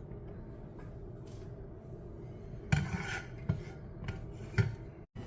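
Cooking utensils handled against a pot: a few short knocks and scrapes, the busiest cluster about halfway through, over a low steady background hum.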